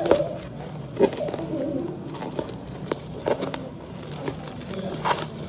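Unboxing handling noise: a few sharp clicks and knocks, spaced a second or two apart, as boxes and packaging are handled.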